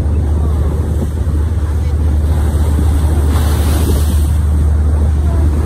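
A tour boat's engine running with a steady low hum, with rushing water and wind on the microphone.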